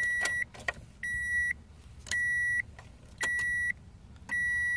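Subaru Legacy's door-open warning chime beeping steadily, five half-second high tones about one a second, with a few sharp clicks between them. The door-ajar light is lit, and the chime is the warning for a door left open with the key in the ignition.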